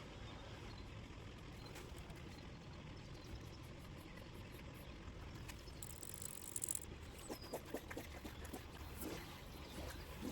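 Faint outdoor ambience by a lake: a steady low background with a short high hiss about six seconds in. A few faint bird calls come in the second half.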